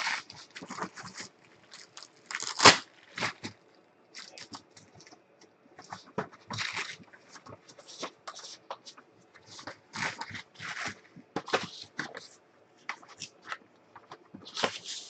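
Packing paper and bubble wrap being handled, crinkling and rustling in irregular bursts, with one loud crackle a little under three seconds in.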